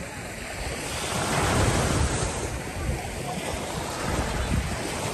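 Small waves breaking and washing up the sand at the water's edge, swelling louder about a second in, with wind rumbling on the microphone.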